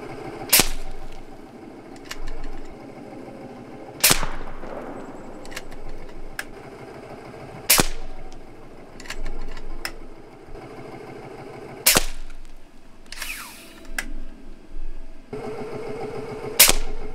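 AGT Vulcan 3 .22 calibre PCP air rifle firing five shots, about one every four seconds, each a sharp crack with a short decaying tail. Quieter clicks and clacks come between the shots.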